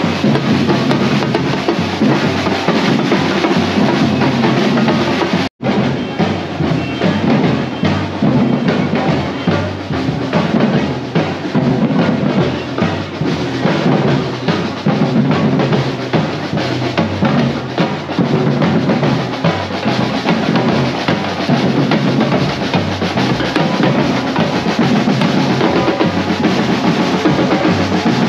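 Drum-led music: drums and percussion playing a busy, dense beat. The sound cuts out completely for a split second about five and a half seconds in.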